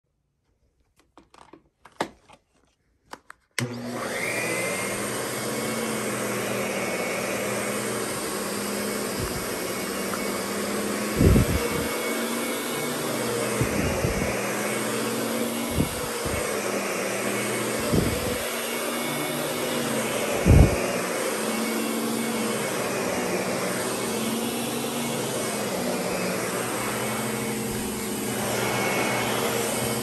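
Lindhaus Diamante upright vacuum cleaner: a few clicks, then the motor starts suddenly about three and a half seconds in and runs steadily over carpet with a constant whine. Several short low thumps come as it is pushed around.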